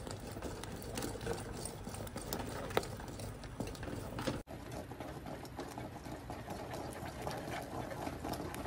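Wooden spatula stirring thick cashew paste in a metal kadhai: a fast, steady run of scraping and tapping against the pan as the ground cashews are worked into the sugar syrup. The sound cuts out for an instant a little over four seconds in.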